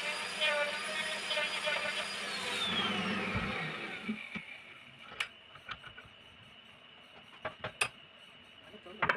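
A woodturning lathe's electric motor running, then switched off and winding down, its whine falling in pitch over about a second and a half. A few sharp knocks or clicks follow.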